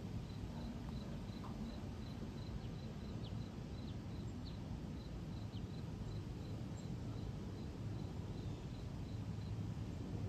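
Low, steady rumble of an Airbus A220-300's Pratt & Whitney PW1500G geared turbofans climbing out high overhead. An insect chirps about three times a second, fading in the second half, and a few short bird chirps come in the first half.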